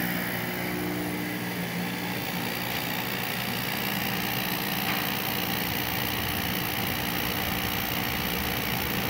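Mr. Heater 70,000 BTU portable radiant kerosene heater starting up: its fan and burner give a steady, even rush of air as the burner lights.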